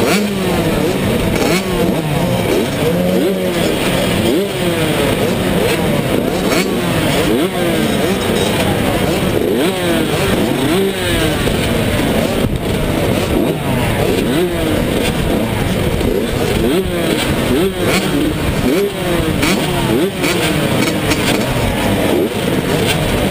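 A row of 85cc two-stroke motocross bikes revving at the starting gate, many engines rising and falling in pitch over and over and overlapping.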